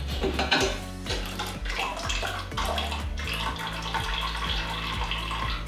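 Hot fruit tea trickling and dripping through a metal sieve into a saucepan as the boiled berries and rosella calyces are squeezed with a spatula, with the spatula scraping and clicking against the sieve and pot.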